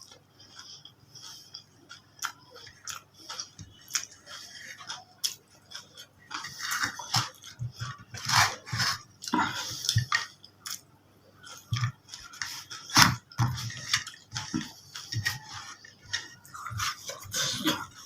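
Close-up eating sounds: irregular chewing, biting and crunching with wet clicks, coming in louder clusters a few times.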